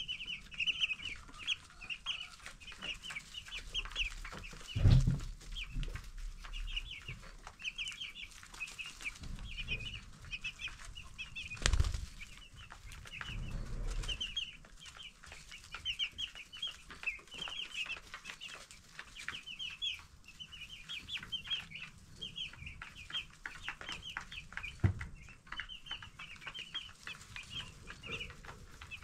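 A flock of 10-day-old broiler chicks peeping continuously, many short high chirps overlapping. A few dull thumps stand out, the loudest about five and twelve seconds in, with another near the end.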